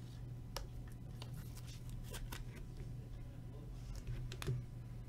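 Trading cards being handled: a few faint clicks and light rustles of card stock and sleeves, over a steady low hum.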